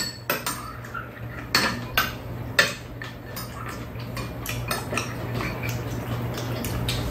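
Metal spoon and chopsticks clinking and scraping against bowls as people eat, with four sharper clinks in the first three seconds and lighter taps after.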